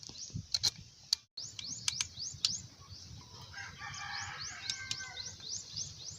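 A bird repeating a short, high, rising chirp about three times a second, and a rooster crowing for about two seconds in the middle. A few sharp clicks come in the first couple of seconds.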